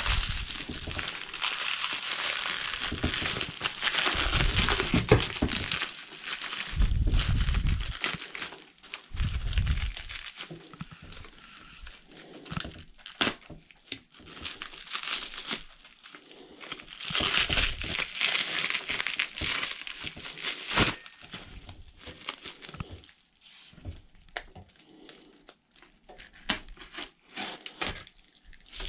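Plastic wrapping and cardboard packaging crinkling and rustling as parts are pulled out of a shipping box, in bursts that come and go, with a few dull bumps in the first ten seconds.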